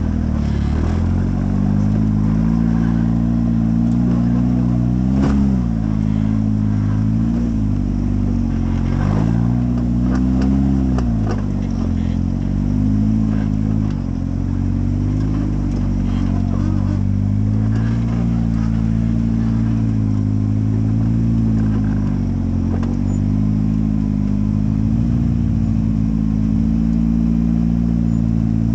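Off-road side-by-side UTV engine running loud and close, revving up and easing off again and again every second or two, then holding a steadier speed in the second half, with a few knocks and clatters.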